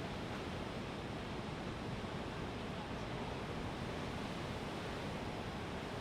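Steady rushing noise of ocean surf, mixed with wind, with no distinct wave crashes standing out.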